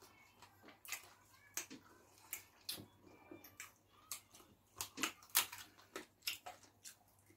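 Close-up mouth sounds of a person eating spicy turkey wings and fufu: irregular wet smacks and clicks of chewing and lip-smacking, a few a second.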